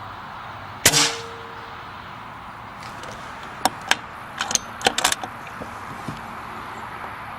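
A single shot from an Air Arms S410 PCP air rifle about a second in, a sharp crack with a brief ring. A couple of seconds later comes a quick run of sharp clicks, the rifle being handled.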